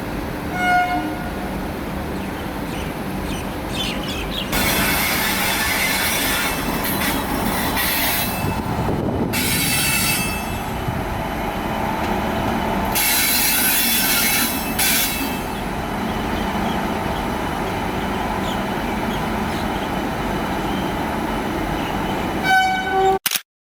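Passenger train running along a station platform: a steady rumble of wheels and coaches, with stretches of high screeching between about four and fifteen seconds in. A short horn blast sounds about a second in and again near the end, and the sound cuts off suddenly just before the end.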